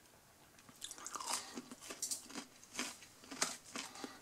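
A person chewing a mouthful of breaded chicken strip. Soft, irregular crunches of the coating start about a second in.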